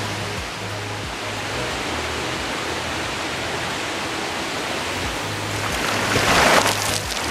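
Background music with a repeating bass line over a steady hiss, with a louder hissing surge about six seconds in.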